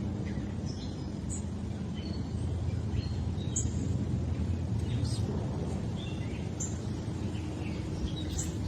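Small birds chirping in short, scattered high notes over a steady low background rumble.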